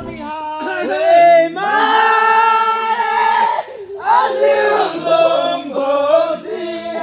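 Several voices singing together unaccompanied, in long held notes that glide between pitches.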